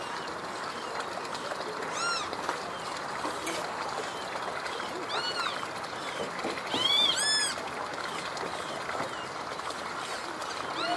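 Short arched animal calls, each a fraction of a second: single calls about two and five seconds in and near the end, and a quick run of several, the loudest, a little past halfway.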